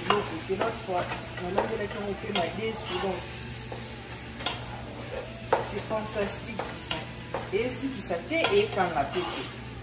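Wooden spoon stirring sweet potato leaves and onions frying in a pot, with a steady sizzle and irregular knocks and scrapes of the spoon against the pot's sides.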